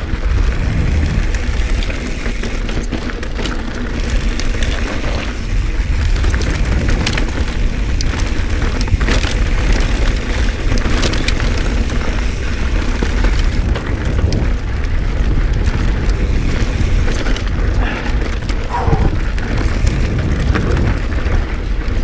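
Wind buffeting a wearable action camera's microphone with a steady low rumble as a Pivot Switchblade mountain bike rides fast over a rocky dirt trail. Tyres crunch over stones, with scattered clicks and knocks from the bike rattling over rocks.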